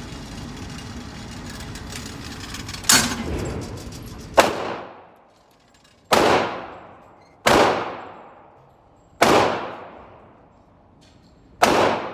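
Six single gunshots at a firing range, about a second and a half apart, each with a ringing tail. A steady rumble underneath stops after the second shot.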